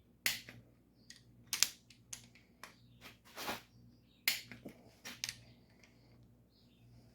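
Torque wrench tightening small-block Chevy cylinder head bolts toward 70: a dozen or so sharp, irregular clicks and short rasps, the loudest about a quarter second in, over a faint steady hum.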